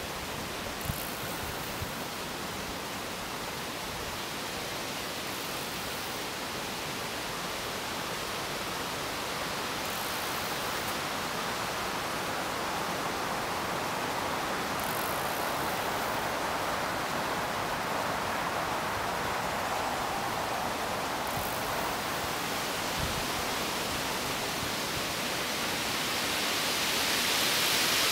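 Steady rushing hiss that slowly swells and is loudest near the end, with a couple of faint soft knocks.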